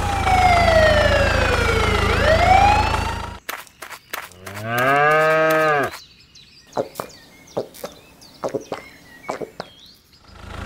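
A low engine hum for a tractor runs under a tone that slides down for about two seconds and then swoops back up. It cuts off after about three and a half seconds. A cow then moos once, a long call rising and falling in pitch, followed by scattered light clicks and short chirps.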